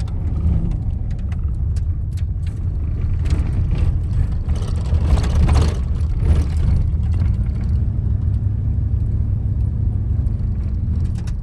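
Steady car engine and road noise from a moving car, with a louder swell of rushing noise around the middle.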